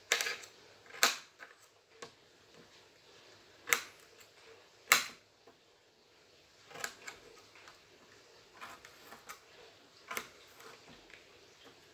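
Small kitchen knife cutting radish into small pieces, the blade tapping the cutting board in sharp, irregular clicks with quiet gaps between. The loudest clicks come about a second in and around four to five seconds in.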